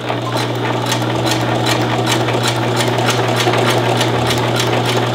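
Domestic electric sewing machine running steadily while stitching a seam. The motor hums under a rapid, even ticking of the needle.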